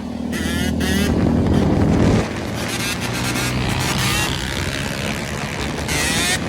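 Yamaha YZ125 single-cylinder two-stroke engine revving. It climbs for about two seconds, drops off abruptly, then runs on unevenly at a lower level.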